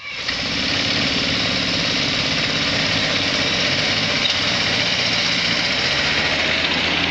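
Small gasoline engine running steadily, with an even low hum under a dense rushing noise.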